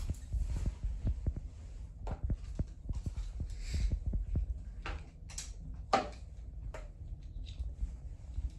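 Handling and rustling noise: scattered small clicks and soft thumps over a low rumble, with a sharper knock about six seconds in.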